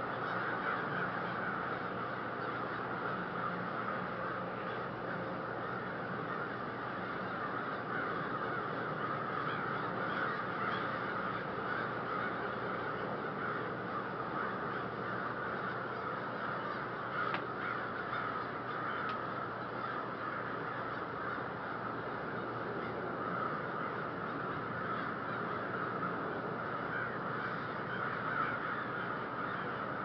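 A large flock of crows calling together, countless overlapping caws merging into a steady, unbroken din.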